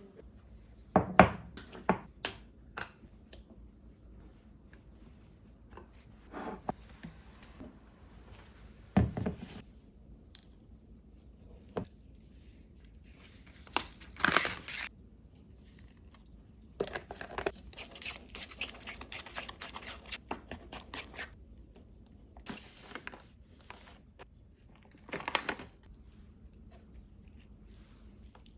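Kitchen preparation sounds: plastic packets crinkling and tearing, a few sharp knocks of bowls or utensils, and a dense crackling stretch partway through.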